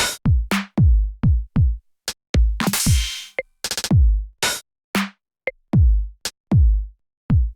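Electronic music: a drum machine plays a sparse, stop-start beat of deep kick drums that fall in pitch, mixed with sharp, bright hits, with short silences between the strokes.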